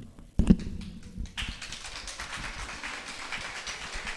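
A loud low thump about half a second in, then an audience applauding from about a second and a half in.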